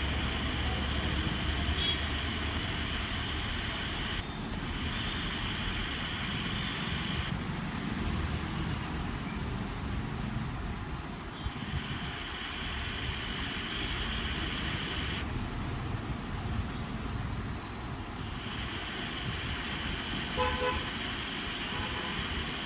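Steady road traffic noise, with a brief vehicle horn toot near the end.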